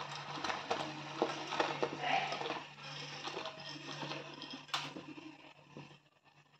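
Water boiling in a saucepan, with many small clicks and patters as broken dry Maggi instant noodles are dropped in from a plate and hit the pot and water. The sound cuts out near the end.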